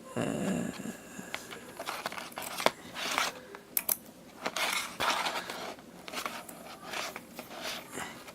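Hands working wires and small parts on a workbench: irregular rustling and scraping with scattered sharp clicks, a loud one near the middle, as the relays' positive and negative leads are connected together.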